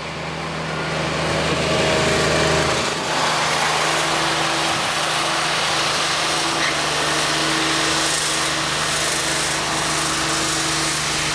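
Small utility tractor's engine running steadily with its front rotary broom spinning as it sweeps snow, a loud, even whirring hum that swells about half a second in.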